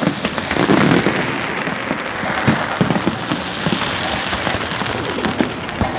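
Fireworks going off continuously: a dense crackle of small bursts, with sharp bangs scattered through it, heard through a phone's microphone.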